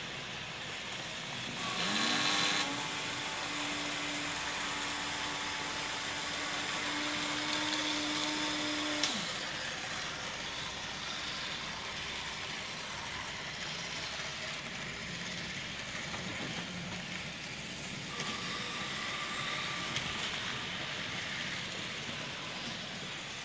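Several Märklin model trains running on the layout: a steady rolling hiss from wheels on track. A small motor whine rises about two seconds in, holds steady, and drops away about nine seconds in.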